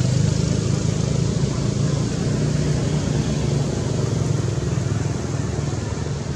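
Steady drone of a motor vehicle engine running, easing off slightly near the end.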